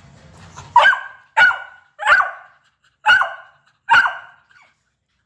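Beagle barking: five short, sharp barks in quick succession, starting about a second in.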